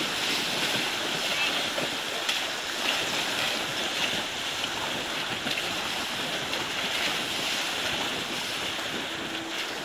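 Water rushing and splashing against a small sailboat's hull as it sails, with spray washing over the deck.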